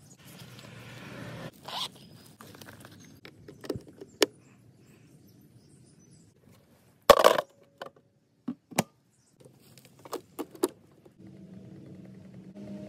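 A zipper on a solar panel's carrying case is drawn open with a rasp, followed by scattered clicks and knocks of gear being handled, and one louder clatter about seven seconds in. Near the end a steady low hum sets in.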